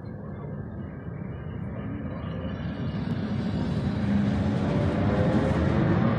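Coupled ED9MK electric multiple unit train running past along the platform, with the rumble of its wheels and running gear growing steadily louder.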